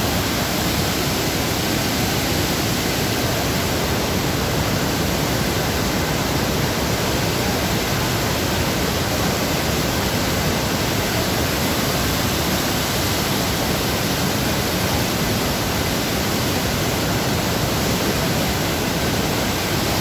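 Fast mountain stream rushing over boulders in whitewater cascades: a loud, steady, unbroken roar of water.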